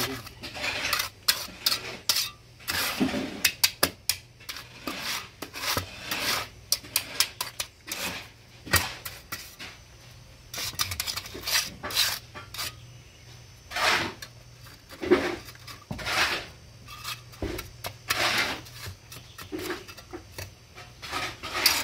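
Steel mason's trowel scraping and tapping on wet concrete, spreading and levelling the fresh mix of a stair step, in many irregular strokes with short pauses.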